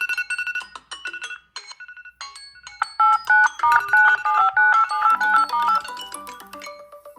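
Smartphone ringtone playing an electronic melody: a few sparse, repeated short notes, then about three seconds in a louder, quicker tune of alternating notes that steps lower near the end.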